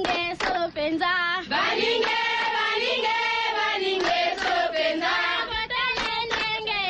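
Tribal-style chanting sound drop: sung voices with wavering pitch over sharp percussion hits, played to take a caller off the air.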